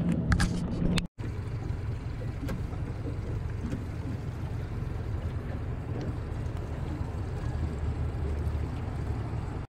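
Honda outboard motor running at low speed on a cruising boat, a steady low rumble. There is a brief break in the sound about a second in.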